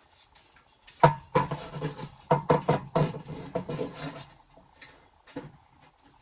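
Small metal objects clinking and knocking together as they are handled: a quick run of sharp clanks starting about a second in, thinning out before a quiet stretch near the end.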